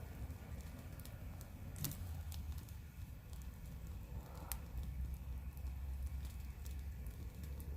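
Wood bonfire crackling, with scattered sharp pops, two louder ones about two seconds and four and a half seconds in, over a steady low rumble.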